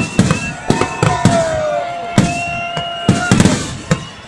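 Festival fireworks bursting overhead in a rapid series of sharp bangs. Through them run long, steady whistling tones that slide down in pitch as they fade.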